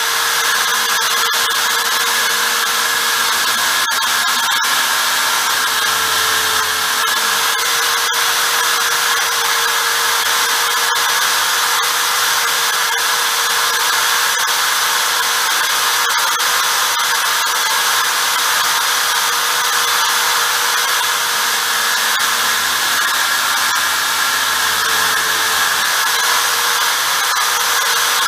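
Corded electric drill fitted with a centre drill and clamped in a lathe-mounted drill holder, running steadily at free speed with an even motor hum, with a few faint ticks.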